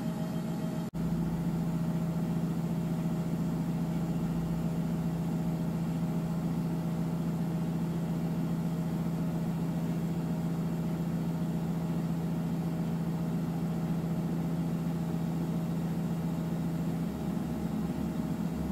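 Steady mechanical hum of running machinery, with a low even tone. It starts after a brief dropout about a second in, and the low tone stops about 17 seconds in.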